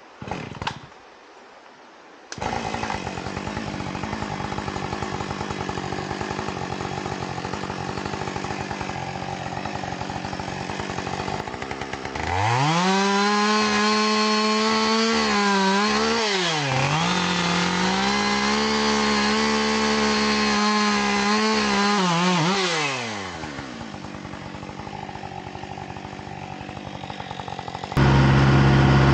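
Husqvarna 550XP two-stroke chainsaw idling, then run up to full throttle for about ten seconds, its pitch dipping briefly once midway, before dropping back to idle. Near the end a louder, steady engine sound with a low hum cuts in.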